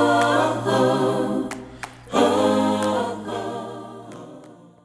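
A choir singing without instruments, in two phrases, the second starting about two seconds in, fading out near the end.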